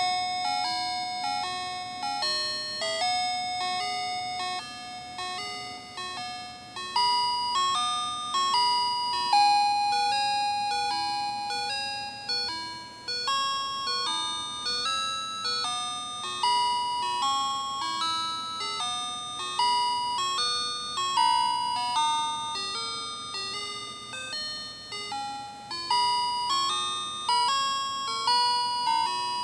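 Fisher-Price musical baby toy playing an electronic tune in bell-like chime tones, each note struck and fading, one note after another without a break.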